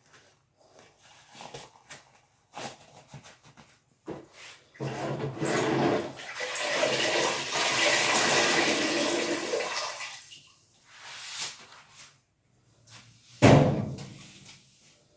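Water rushing and draining for about five seconds, then a single loud thump near the end.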